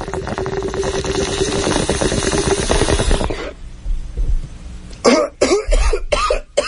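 A bong hit sound effect: water bubbling rapidly through a bong for about three and a half seconds, then a fit of coughing starting about five seconds in.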